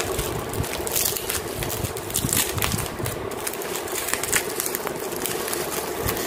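Bubble wrap crinkling and crackling in irregular bursts as hands grip and unwrap plastic-wrapped products in a cardboard box, over a steady hum.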